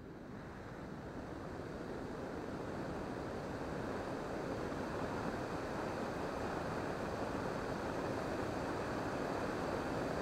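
A steady rushing noise like wind or surf, swelling over the first few seconds and then holding level. No motor whine or other pitched sound stands out.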